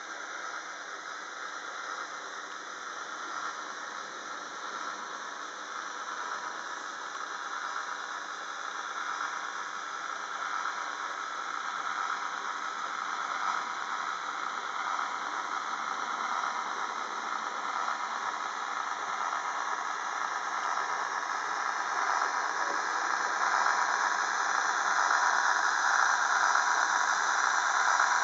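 Model train rolling past on its track: a steady rolling, whirring noise of wheels on rails and drive motor, growing gradually louder toward the end as the V200 diesel locomotive model nears.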